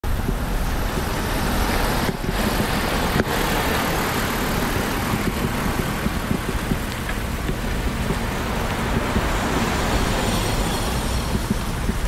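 Road traffic: a steady, continuous rumble of car and motor-vehicle engines and tyres, with two brief dips about two and three seconds in.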